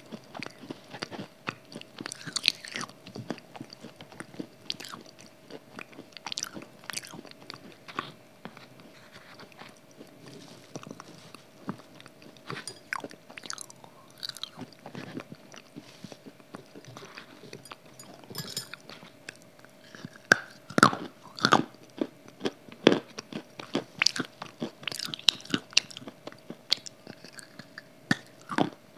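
Close-miked biting and chewing of a wet grey clay cube: a run of crisp crunches and softer chews, with the loudest bites coming about twenty seconds in.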